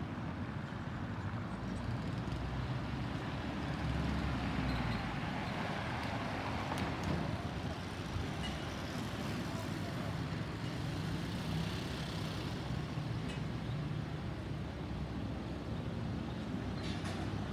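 Distant Boeing 737-800 jet airliner flying over at altitude: steady, broad jet engine noise with a low rumble.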